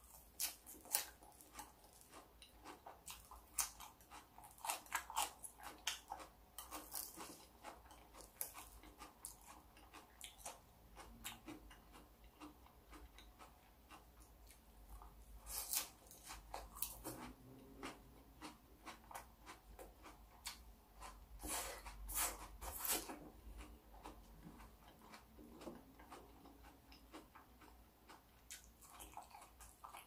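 A person chewing raw salad vegetables close to the microphone: a stream of short, irregular crunches and clicks, coming in denser spells partway through and again later.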